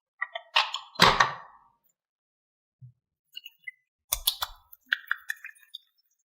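Toys being handled: clusters of sharp clicks and taps, with a louder knock about a second in and another flurry of clicks and knocks around four to five seconds in.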